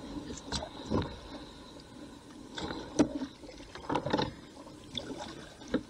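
Kayak paddling: the double-bladed paddle dipping and splashing into the river, short splashes and knocks coming about once a second.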